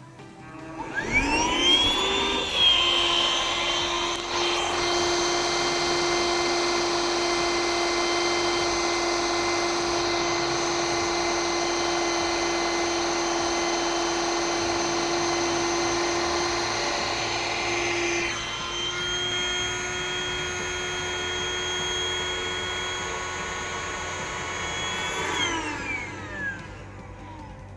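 The Bestway AlwayzAire airbed's built-in 12-volt rechargeable electric air pump starting with a rising whine, running steadily as it inflates the mattress, its tone shifting about two-thirds of the way through, then winding down with a falling whine near the end as the bed reaches full inflation.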